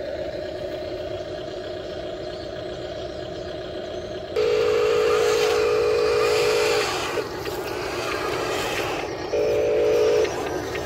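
Radio-controlled model construction machines running: a steady electric motor and gear hum, then from about four seconds in a much louder buzzing whine that stops and comes back briefly near the end.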